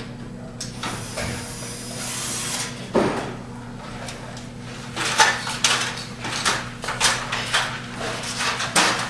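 Cordless drill-driver whirring for about two seconds as it backs a screw out of a fluorescent strip fixture's sheet-metal ballast cover. A knock follows, then a run of metallic clatters and rattles from about five seconds in as the cover is worked loose and pulled off.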